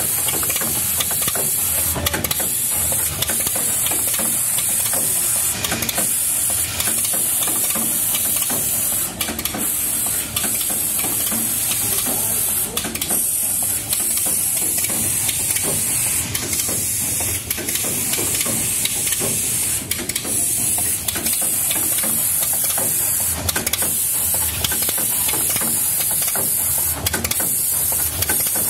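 Automatic through-hole component insertion machine running, with a steady high hiss, a low hum and sharp mechanical clicks every one to three seconds as the insertion heads cycle.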